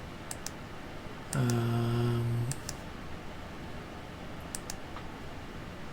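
A few sharp computer clicks. About a second in, a man makes one long, steady-pitched hum lasting about a second, which is the loudest sound.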